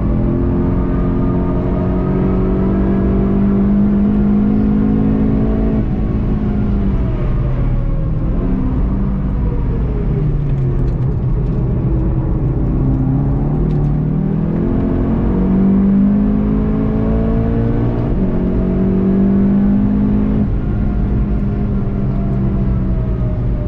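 Volkswagen Golf GTI TCR's turbocharged four-cylinder engine, heard from inside the car. The revs hold steady for about six seconds, then fall as the car slows for a corner. About halfway they climb hard again, with two quick upshifts near the end that each drop the pitch sharply.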